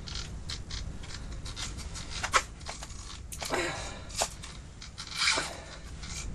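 Spinning reel being cranked while fighting a fish through the ice: scattered irregular clicks and ticks of reel and rod handling, with two short breathy sounds a few seconds in, over a low steady rumble.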